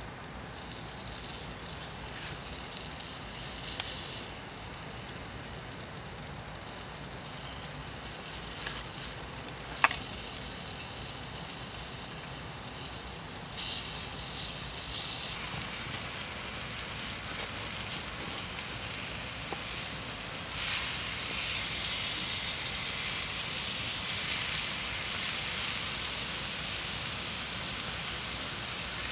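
Cow heart and sliced potatoes sizzling on a hot stone slab over a wood fire, a steady hiss that grows louder in two steps, about halfway and again about two-thirds of the way in. A single sharp click about a third of the way in.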